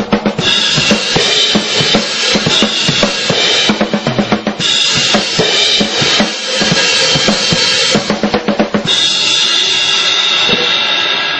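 Drum kit played hard: fast snare, tom and bass drum hits under crashing cymbals, with a quick run of hits without cymbals late on, ending on a cymbal left ringing and slowly fading.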